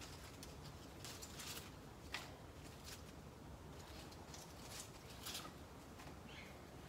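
Faint, irregular rustling and scraping of dry leaves and soil being handled, in scattered short bursts.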